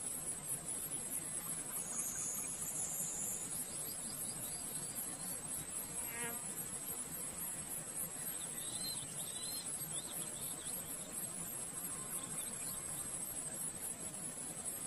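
Steady high-pitched insect chorus with a fine, fast pulse, with a few faint short chirps near the middle.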